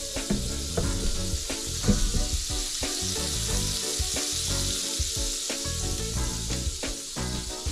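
Butter sizzling in a cast iron skillet on high heat as a sandwich toasts in it, a steady frying hiss, with background music underneath.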